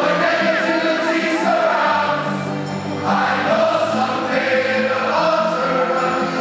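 Mass choir of graduating high-school students singing a medley together, many voices holding long notes that change about once a second.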